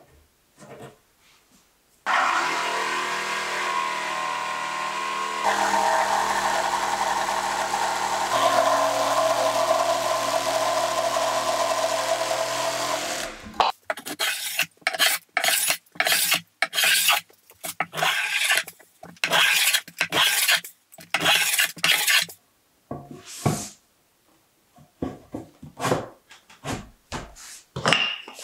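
An electric power saw runs for about eleven seconds, cutting along the marked line in an ash window-sill board. Its note changes as it bites into the cut, and it stops abruptly. A run of short, rough scraping strokes follows, about two a second.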